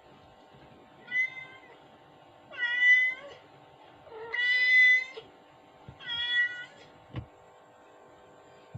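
A cat meowing four times, high-pitched calls each lasting about half a second to a second, the third the longest, followed by a short soft knock.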